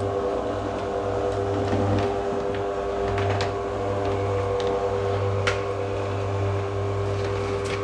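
Garage door opener motor running steadily as it drives the door closed, a constant hum with a few light clicks and rattles from the moving door.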